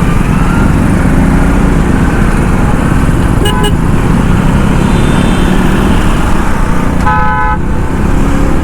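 KTM Duke 250's single-cylinder engine and stock exhaust running under way in traffic. A vehicle horn toots briefly twice about three and a half seconds in, and another horn sounds for about half a second near seven seconds.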